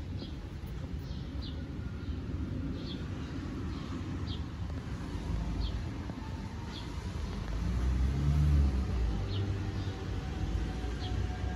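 Street traffic rumbling, swelling louder about eight seconds in as a vehicle passes, with a small bird chirping about once a second over it.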